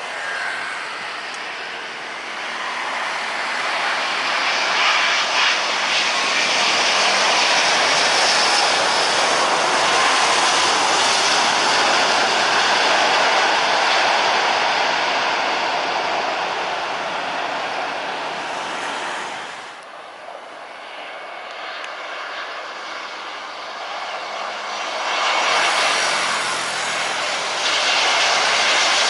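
Jet airliner engines passing close by: a dense rushing noise that builds over several seconds and stays loud. It drops off suddenly about twenty seconds in, then another swell of jet noise rises near the end.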